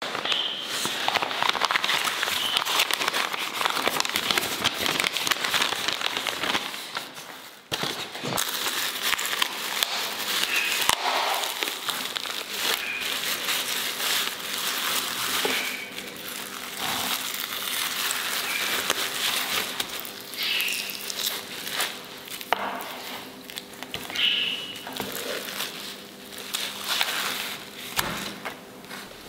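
Thin plastic bag crinkling and rustling as hands unwrap it, with a brief lull about eight seconds in.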